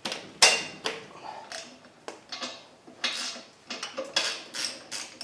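Irregular metallic clinks and clatter of a wrench and socket working on a 12 mm torque converter bolt in an engine bay. There are about a dozen separate strikes, the sharpest about half a second in.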